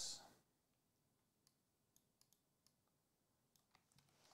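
Near silence with a few faint, scattered clicks.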